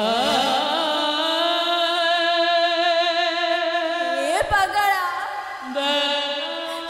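Jatra stage music: a melody of long held notes, wavering at first, with a quick upward slide about four and a half seconds in.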